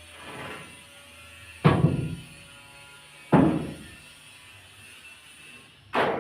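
Timber concrete formwork being knocked loose: three sharp, loud wooden knocks about a second and a half apart, each ringing briefly, with a softer knock near the start.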